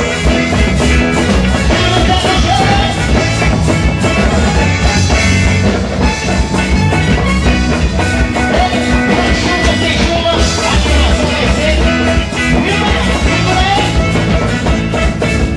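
Loud band music with a steady driving beat, drums and singing.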